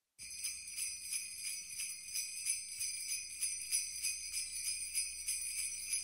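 Sleigh bells jingling in a steady rhythm, about three shakes a second, as the intro of a Christmas song.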